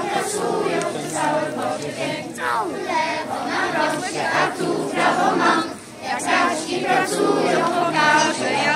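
A group of children singing a song together in chorus, with a short break about six seconds in.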